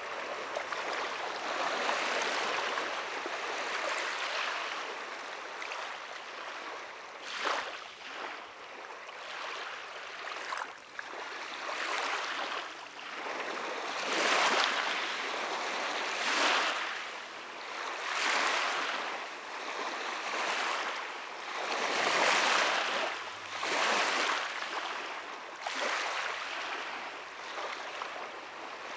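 Small lake waves lapping onto a fine pebble-and-gravel shore, each wash swelling and fading about every two seconds.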